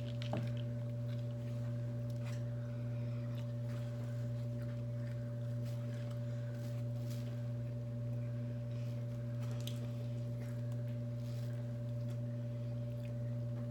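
A steady low hum running without change, with a few faint clicks and small knocks over it.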